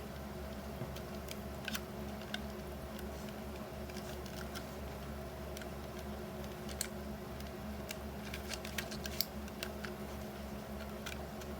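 Faint, scattered clicks and ticks of plastic as the Papago GoSafe520 dashcam's case is pried open along its seam with a plastic pry tool, over a steady low hum.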